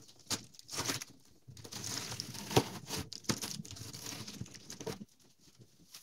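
Aluminium foil tape crinkling and tearing as a refrigerator's coolant lines are ripped out of the foam insulation in the cabinet's side wall, with irregular crackles and one sharp snap midway.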